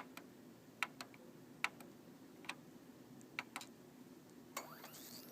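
Faint, sharp clicks at uneven intervals, about ten in all, over a low steady hum.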